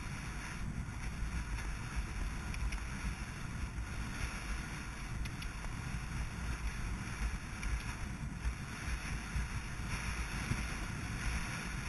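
Steady wind noise rushing over the microphone of a rider-mounted camera on a galloping horse, with the uneven low thudding of the horse's hoofbeats underneath.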